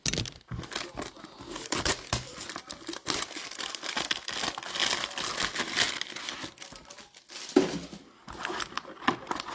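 Foil wrapper of a baseball trading card pack being torn open and crinkled, a dense run of crackles and rips that eases briefly near the end.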